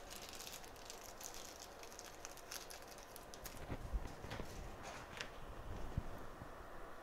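Faint handling noise of scattered light clicks and rustles, with a few soft thumps about four and six seconds in.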